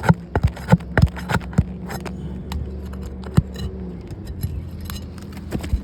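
Asphalt roof shingles being worked loose: a quick run of sharp clicks and cracks in the first two seconds, then scattered single ones, as the seal strips and tabs are broken free. A steady low drone runs underneath.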